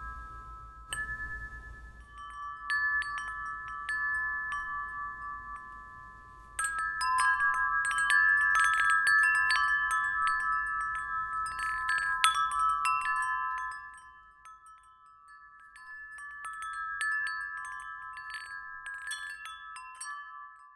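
Metal-tube wind chime ringing as its striker swings against the tubes: a handful of clear, lingering notes struck again and again. The strikes come thickest around the middle and thin out for a couple of seconds about two-thirds of the way through.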